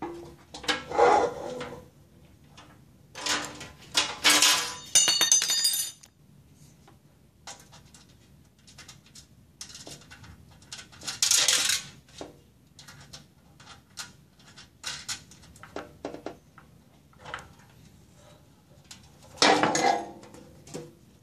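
Sheet-metal grill lid and hinge bracket being handled and fitted on a workbench: scattered metallic clanks and rattles. The loudest clatters come about four to five seconds in, with a brief metallic ring, then around eleven seconds and again near the end.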